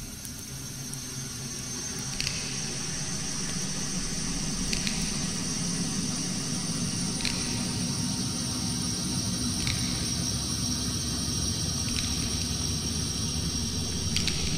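Electronic ambient soundscape: a low rumbling drone with a hissing, watery texture and a faint high sustained tone, slowly swelling in level, with a short bright glint about every two and a half seconds.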